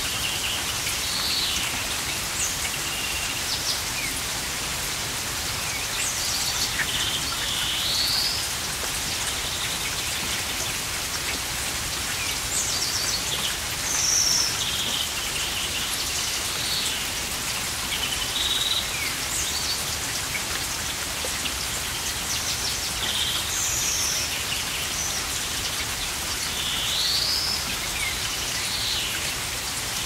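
Steady hiss of water, with birds chirping in short rising and falling calls several times.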